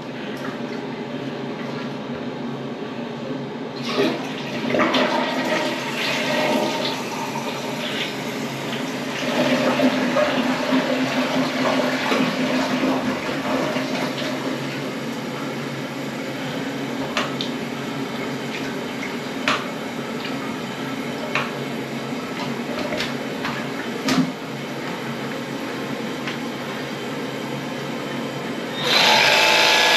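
Water running in a toilet, with a few sharp knocks as the air gun's rubber cup is worked against the porcelain bowl. About a second before the end, the Milwaukee M12 AirSnake drain gun's motor starts suddenly and runs loudly as it builds air pressure to blast the clog through.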